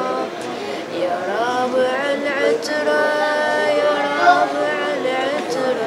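A raddod's voice singing an Ashura lament, drawing out long held notes that slide and waver in pitch.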